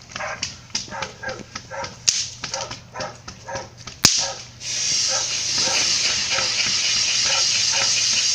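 A dog barking and yipping rapidly, about three barks a second. About halfway through there is a sharp crack, and then a steady loud hiss starts under the barking, the spray of a lit fountain firework.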